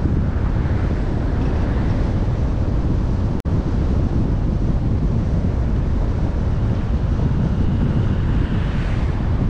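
Wind buffeting the microphone of a moving car's camera over steady road noise, with oncoming cars swelling past near the start and again near the end. The sound drops out for an instant about a third of the way in.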